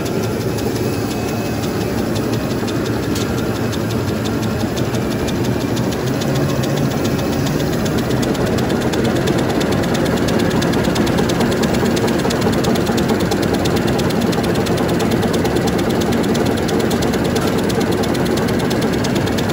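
Automatic V-fold facial tissue folding machine running steadily, its rollers and folding mechanism making a fast, even rhythmic clatter.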